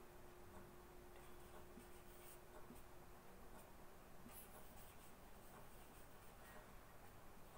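Faint strokes of a marker pen writing on chart paper.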